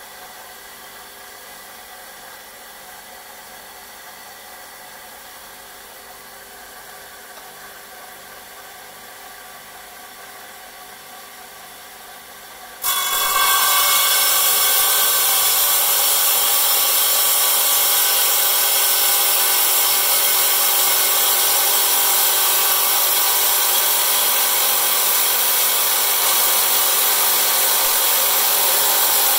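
Electric stone-cutting saw running steadily at first. About 13 seconds in, a small stone is pressed against the blade and a much louder, steady grinding of the blade cutting through the stone begins and carries on.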